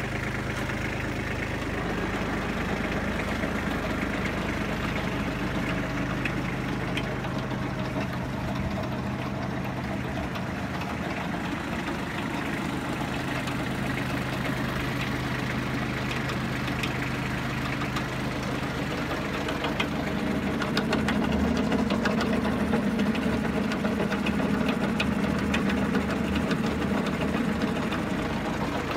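Kubota compact tractor's diesel engine running steadily, growing somewhat louder about twenty seconds in.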